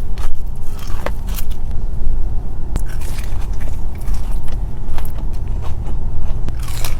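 Close-miked biting and chewing of crispy fried chicken wings, with scattered crackly crunches over a steady low rumble.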